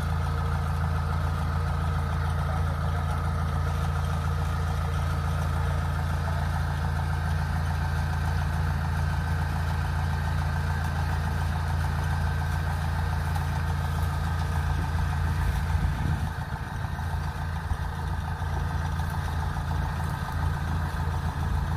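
Kubota DC-70 combine harvester's diesel engine running steadily with a deep, even hum. About sixteen seconds in, the steady note breaks up and the running turns uneven.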